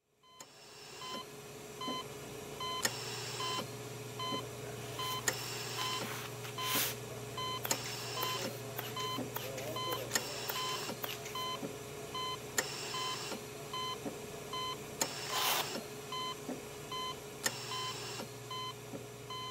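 Bedside patient monitor beeping steadily, short evenly spaced beeps over a low electrical hum: the heartbeat tone of a patient lying in a coma. Twice a brief soft hiss rises over it.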